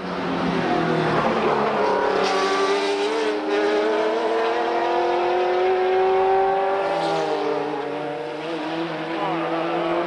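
Group C prototype race cars accelerating out of a corner, their engine notes climbing steadily in pitch for several seconds; near the end another car's engine comes in.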